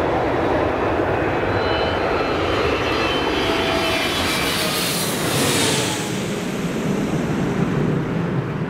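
Twin-engine jet airliner flying low overhead with its gear down: steady jet noise with a faint high whine from the engines. The hiss is loudest about five to six seconds in as it passes directly over, then eases off.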